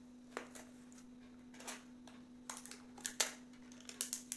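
Scattered clicks and rustles of a plastic phone case and its packaging being handled, coming in small clusters, with a steady low hum underneath.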